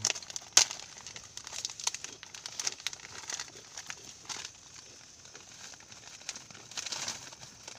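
Plastic snack packet crinkling and crackling as it is handled, in scattered irregular clicks with the sharpest about half a second in.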